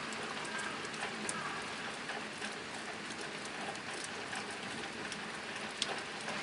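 Steady rain drumming on a tin roof: a dense, even patter with a few sharper drop ticks standing out.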